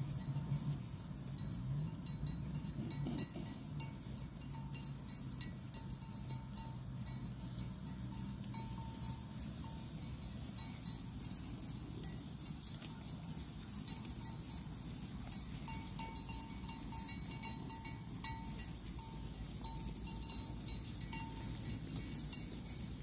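A grazing flock of sheep: small bells on the flock clink and tinkle on and off, over many fine crisp ticks of grass being cropped.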